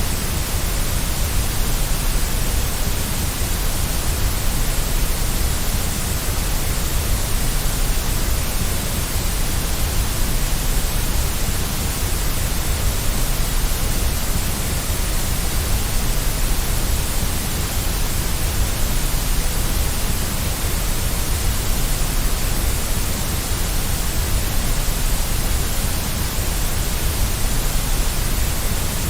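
Steady white noise for settling a baby to sleep: an even hiss with a deep rumble beneath it.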